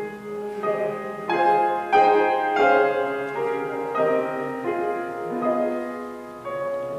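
Slow instrumental keyboard music, most likely piano, playing chords that change every second or so.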